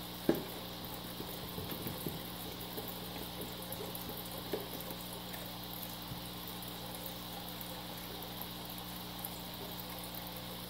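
Small clicks and ticks of a Torx screwdriver and screws being handled against the plastic underside of a robot vacuum, with one sharp click about a third of a second in, over a steady low hum.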